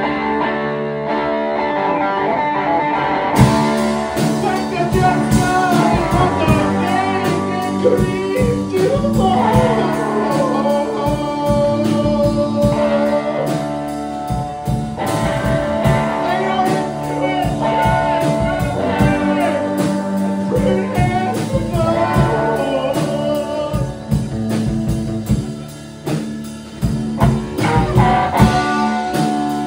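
Live punk band playing electric guitar, bass guitar and drums, with a singer at the mic; the drums and cymbals come in about three seconds in.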